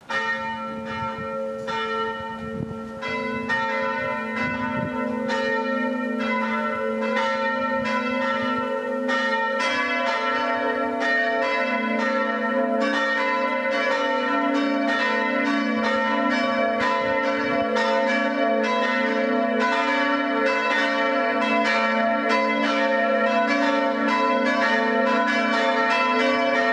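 Church bells ringing a peal: several bells struck over and over, their long ringing tones overlapping, with the strikes coming thicker from about ten seconds in.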